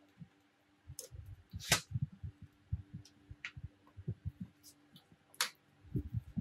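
Hand-fitting a switch and the sheet-metal front panel of a power stabilizer: a run of soft low knocks and bumps with four sharp clicks spread through, over a faint steady hum.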